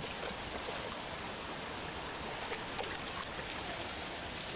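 Shallow creek water running over rock: a steady, even rush of flowing water.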